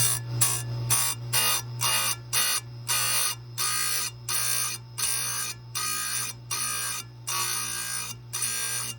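Electric chain grinder's motor running steadily while its square-grind wheel is tapped lightly onto the cutters of a Husqvarna C83 saw chain: over a dozen short grinding rasps, quick at first and a little longer later on. These are brief touches that square the chisel cutters without heating the chain.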